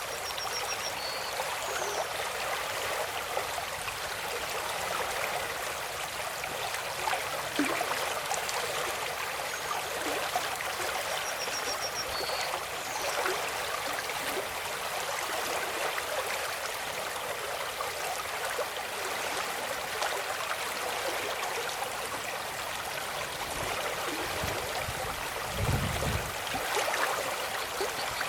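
A stream of water running with a steady trickling rush, with a short high chirping twice and a low rumble about twenty-five seconds in.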